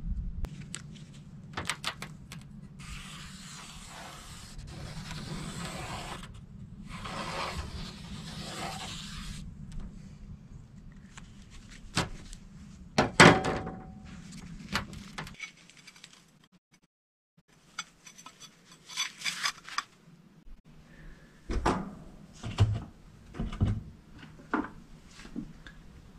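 A plastic dash panel sliding and knocking on a bare steel sheet while its outline is traced with a marker: two long rough scraping strokes, scattered clicks and knocks, and one loud knock about halfway through. A low steady hum sits underneath.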